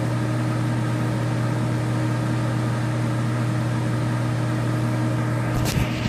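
ProTemp Sun-Stream PT-70-SS kerosene heater's fan motor running with a steady hum, the burner unlit after a failed ignition attempt. A brief handling knock near the end.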